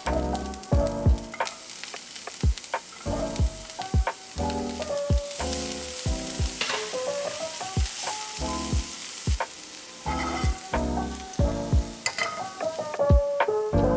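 Chopped vegetables sizzling in an oiled nonstick frying pan, stirred and pushed about with a nylon spatula. Background music with pitched notes and a steady low beat plays under it.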